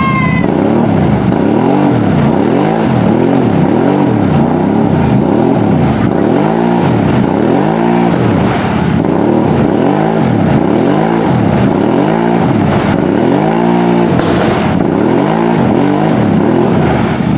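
Lifted mud ATV's engine revved hard over and over, its pitch climbing and dropping about once a second, with the wheels spinning in deep mud while the machine stays bogged in the hole.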